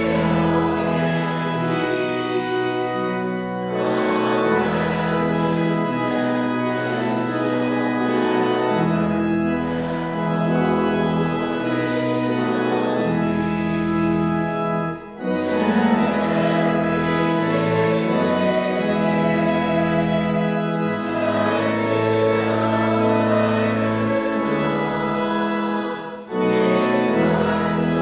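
Church organ playing a hymn in sustained held chords, with brief breaks between phrases about halfway through and near the end.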